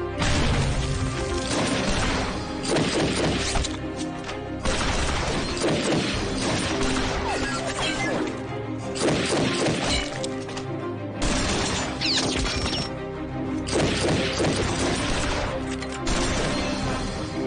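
Dramatic action film score under a fight scene, with repeated loud crashes and smashing, shattering impacts. The clashes come in several noisy stretches separated by short lulls.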